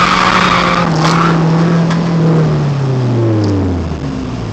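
Nissan KA24DE four-cylinder with aftermarket intake and exhaust held at high revs while the tyres squeal, heard from inside the car; the squeal stops about a second in, and the revs fall away steadily in the last two seconds.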